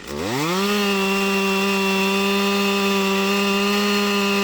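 Chainsaw engine throttled up from idle to full speed in about half a second, then held at a steady high pitch.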